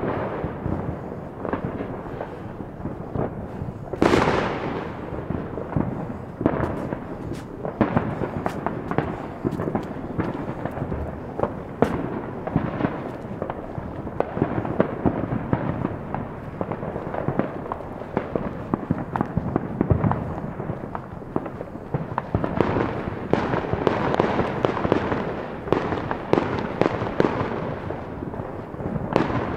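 Many fireworks and firecrackers going off all around: a constant rumble of distant booms with frequent sharp cracks and pops, the loudest bang about four seconds in.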